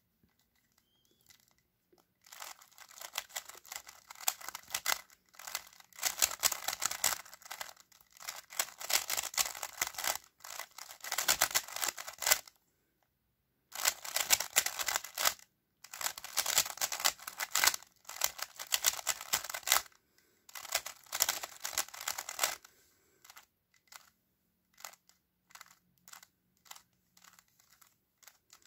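Plastic 3x3 speedcube being turned fast, its layers clicking and clacking in quick bursts of a few seconds, each an algorithm run through as a PLL case is solved, with short pauses between them. Near the end only a few separate turns click.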